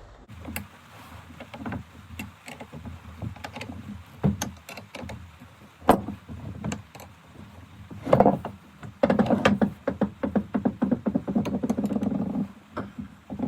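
A 9/16 wrench tightening the bolt on a timber carrier's handle: scattered metal clicks and knocks, then a run of rapid clicking for about three seconds, starting about nine seconds in, as the bolt draws up tight.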